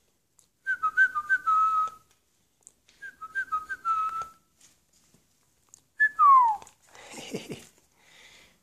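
A person whistling to call a chihuahua puppy: two quick runs of short notes flicking between two pitches, then one whistle that slides down. A short scuffing, rustling noise follows about a second later.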